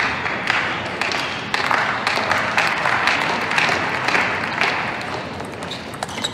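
Crowd applauding and cheering between points, in swells, dying down toward the end. Near the end come the first sharp clicks of a celluloid table tennis ball off bat and table as a rally starts.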